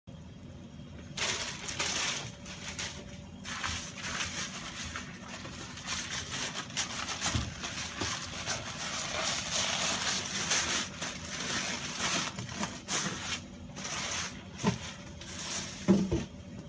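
Knife strokes cutting and scraping through a large fish, in irregular rasping passes with a couple of sharp knocks near the end, over a steady hum.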